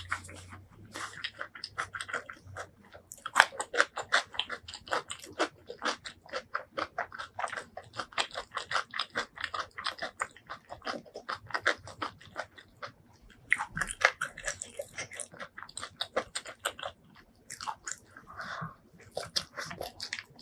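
Close-miked ASMR eating sounds: a person chewing and biting food, with a dense, irregular run of crunchy, wet mouth clicks that grows busier about two-thirds of the way in.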